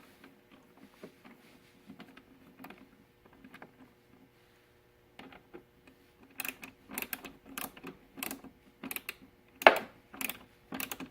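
Small socket ratchet clicking as a Torx T20 bolt is tightened back into a saddlebag latch: faint scattered clicks at first, then a quicker run of sharp clicks about two or three a second over the last five seconds.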